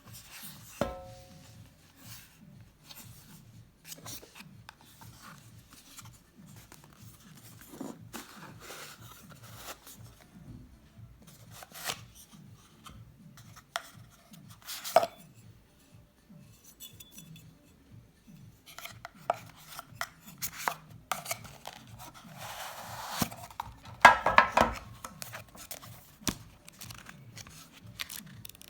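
Hands handling a wristwatch and its packaging: scattered clicks, rubbing and rustling, with a short ringing click about a second in and the loudest stretch of rustling and scraping about 24 seconds in.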